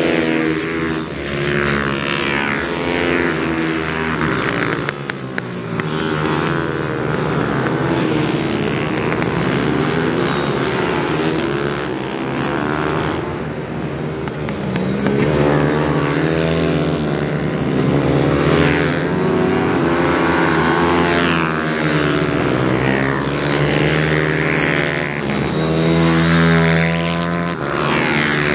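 Several 190 cc minibike race engines revving hard as the bikes race past, overlapping, their pitch rising and falling again and again as the riders open the throttle and back off through the corners.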